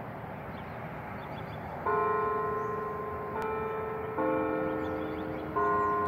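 Church bells begin about two seconds in. Four struck notes at different pitches follow at intervals of one to one and a half seconds, each ringing on as the next sounds, like the start of a chime tune. Before them there is only steady background noise.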